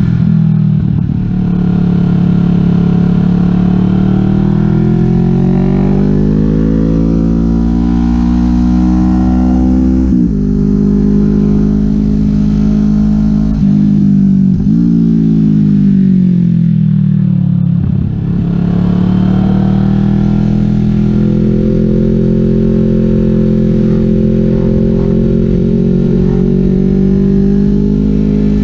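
Kawasaki Vulcan S 649 cc parallel-twin engine through a Delkevic 550 mm slash full exhaust, heard from the rider's seat while riding. Revs climb, dip sharply three times and pick up again, then settle into a steady cruise.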